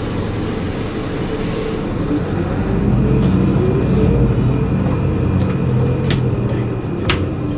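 Volvo D7E six-cylinder diesel engine of a Volvo 8700LE bus pulling harder, its rumble rising about three seconds in, with a thin high turbo whistle over it. Two sharp clicks near the end.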